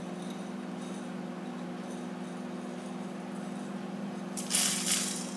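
Steady low electrical hum from a running kitchen appliance, with a short burst of hiss about four and a half seconds in.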